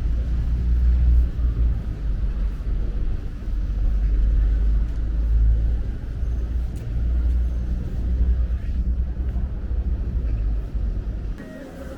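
Wind buffeting the microphone: a heavy, uneven low rumble that cuts off sharply near the end.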